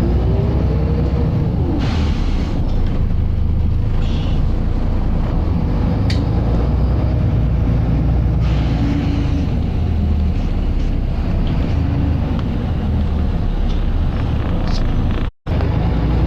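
Volvo B7RLE bus drivetrain running hard under way, heard from on board: a deep, loud engine thrash with a whine that rises and then falls in the first two seconds and comes back more faintly later, and short bursts of air hiss. It cuts out briefly near the end.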